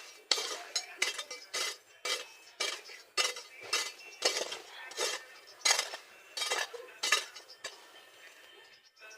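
A metal hand tool striking and scraping soil in quick, short strokes, about two a second, with a clinking edge, until the strokes stop near the end.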